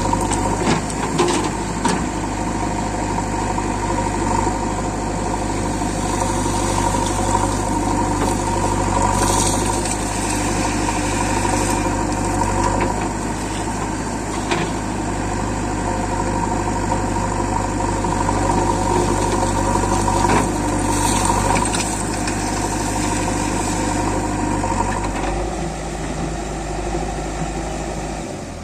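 Heavy diesel engine running steadily near idle, with a few sharp knocks scattered through it. It gets quieter near the end.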